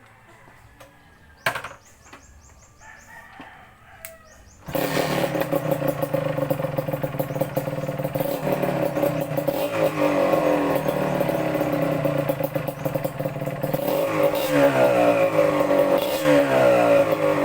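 Kawasaki KMX 125 two-stroke single-cylinder engine catching suddenly about five seconds in, then running at idle and being revved up and down several times near the end, louder with each blip. A sharp knock sounds about a second and a half in, before the engine starts.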